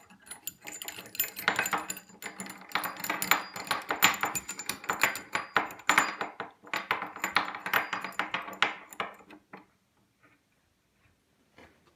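Rapid metallic clicking and rattling as the bolts of a homemade wooden clamping jig are tightened from underneath. It stops abruptly near the end.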